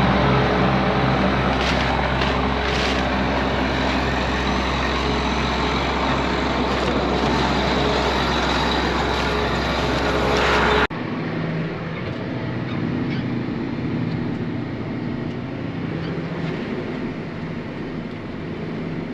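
Combine harvester's engine and machinery running steadily under load; about eleven seconds in the sound changes abruptly and runs on a little quieter, with less deep hum.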